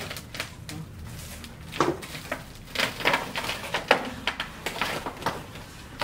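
Irregular scraping and clattering of soil and rubble being scooped and handled with a bucket, a string of sharp scrapes and knocks, loudest about two and four seconds in.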